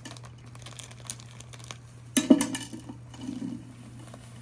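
Faint rustling and light clicks of hands handling things, with a short, louder voice-like sound about two seconds in.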